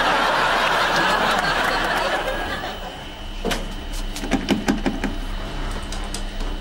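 Studio audience laughing, dying away after about two and a half seconds; then a run of sharp clicks and knocks at a coin-operated front-loading washing machine about four to five seconds in.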